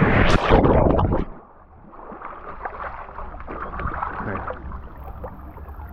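A person jumps into a swimming pool with a loud splash lasting about a second, followed by water sloshing and lapping with small splashes.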